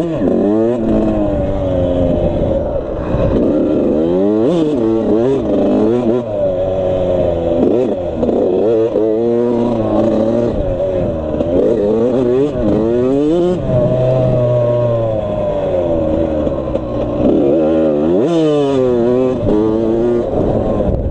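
Suzuki RM85's single-cylinder two-stroke engine being ridden hard, its revs climbing and dropping back again and again as the throttle is worked.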